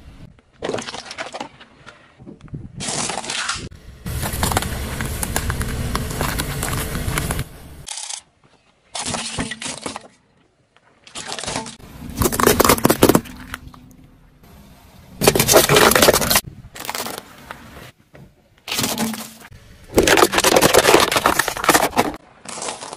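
Objects cracking and crunching as they are crushed under a car's tyres, in a run of short bursts that start and stop abruptly.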